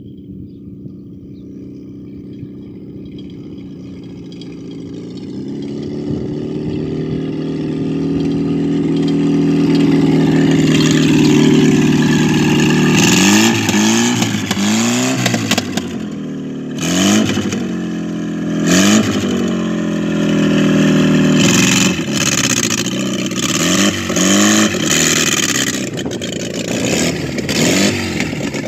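Volkswagen AP 1.8 four-cylinder engine in a dune buggy, running with no exhaust straight off the header. It grows louder as it approaches, then revs up and down again and again with sharp pops and crackles as the throttle comes off.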